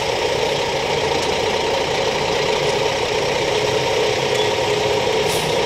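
Diesel engine of a semi-tractor running steadily as the truck creeps forward hauling a mobile home.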